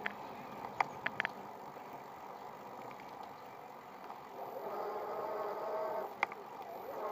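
Electric bicycle on the move: a steady rolling hiss with a few sharp clicks near the start. About four seconds in, the 250 W hub motor's steady whine comes in and holds.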